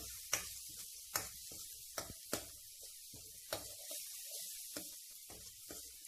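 Onion-tomato masala with spice powders sizzling in a stainless steel kadai, with a spatula scraping and knocking against the steel pan at irregular intervals as it is stirred and sautéed.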